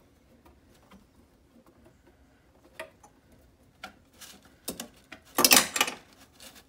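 Hands working on parts inside a refrigerator's machine compartment: scattered small clicks and taps, then a loud scraping rustle lasting about half a second, about five and a half seconds in.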